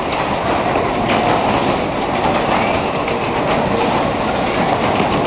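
An over-70-year-old Skid fairground ride running at speed: a loud, steady rumble from its spinning platform and cars.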